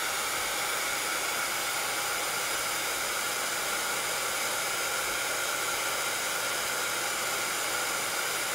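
Handheld craft heat tool blowing steadily, with a faint motor whine over the rush of air, drying freshly applied chalk paste.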